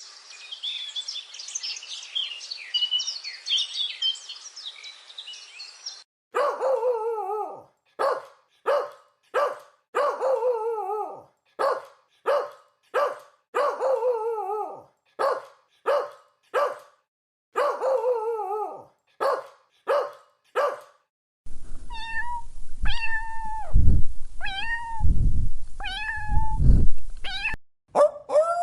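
A run of animal calls in three parts. First comes a dense, high chirping for about six seconds. Then about sixteen short calls, roughly one a second, each falling in pitch. Near the end there are a few calls that rise at the start, over low thumps.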